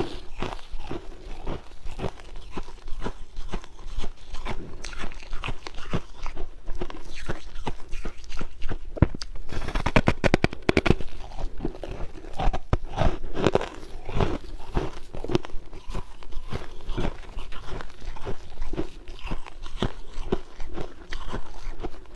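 A person biting and chewing hard refrozen ice: repeated irregular crunches, thickest about ten seconds in.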